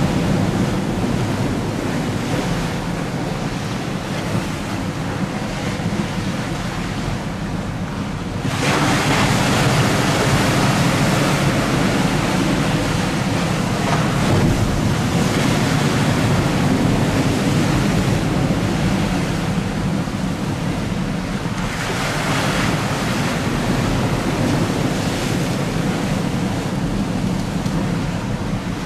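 Strong wind buffeting the microphone over choppy water, with waves slapping. The wind gusts up sharply about eight seconds in and again about twenty-one seconds in.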